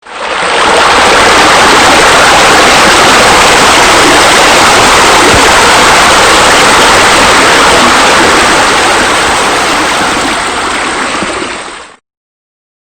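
Loud steady rushing noise with no clear pitch, like flowing water. It starts abruptly and eases slightly before cutting off near the end.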